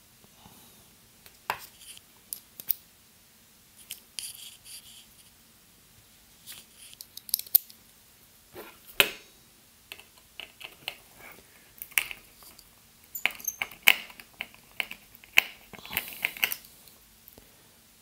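Irregular sharp clicks and short scrapes of a precision screwdriver's small Phillips bit seating in and turning tiny screws on a circuit board inside a plastic plug-in socket housing.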